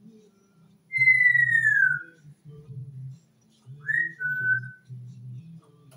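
African grey parrot whistling: one long, clear whistle that slides downward. About three seconds later comes a short rising whistle, then a steady lower note.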